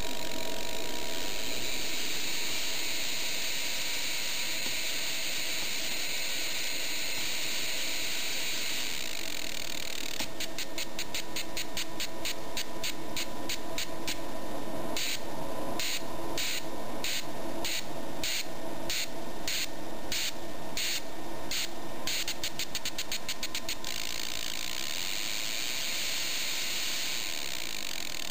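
Modified spark plug sparking continuously off a homemade 555-timer ignition circuit, a steady noise of rapid sparks. From about ten seconds in the sparking turns into a fast clicking, and for several seconds it comes in short bursts about twice a second as the circuit's gating section switches it on and off, then it goes steady again.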